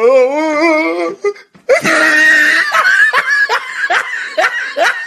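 Loud laughter: a wavering, squealing voice for about a second, then a high squeal that breaks into a run of rhythmic 'ha-ha' bursts.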